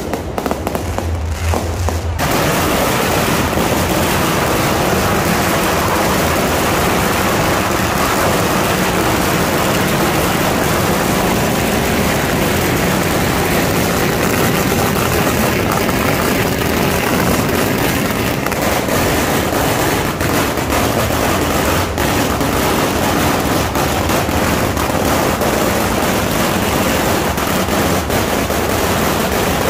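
Long string of firecrackers going off in a dense, rapid crackle that starts about two seconds in and keeps going without a break.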